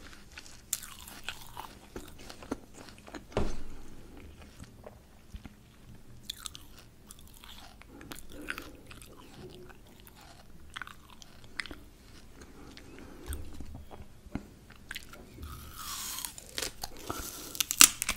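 Crunching and chewing of raw peeled apple pieces, with a sharp crunch about three and a half seconds in and a crisp bite near the end.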